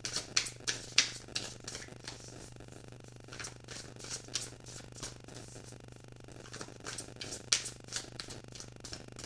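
A tarot deck being shuffled by hand: quick card flicks and slaps in three flurries, the loudest in the first two seconds.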